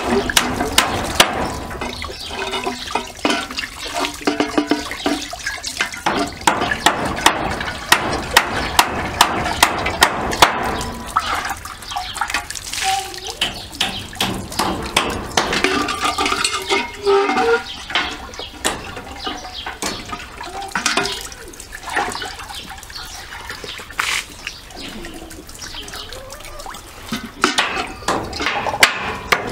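Tap water running and splashing as a metal samovar is rinsed, poured out and refilled, with frequent sharp knocks and clanks as the samovar is handled.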